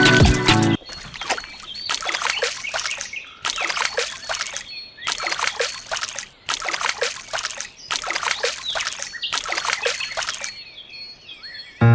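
Water splashing out in about seven separate gushes, each about a second long, like a small pump or shower being worked in strokes; faint bird chirps behind.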